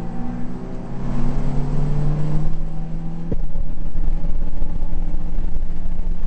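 Mitsubishi Lancer Evolution VII race car's turbocharged four-cylinder engine heard from inside the cabin, accelerating with rising pitch. About three seconds in the pitch drops with a click as it shifts up a gear, then it pulls on, louder, in the next gear.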